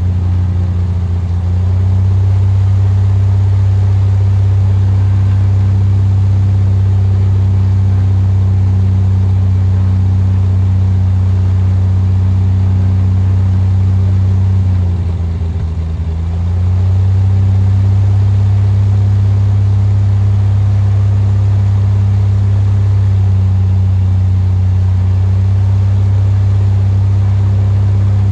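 Single-engine piston propeller aircraft (Cessna RG) running at a steady cruise drone with a strong low hum. About halfway through the drone dips slightly in pitch and loudness for a second or two, then comes back.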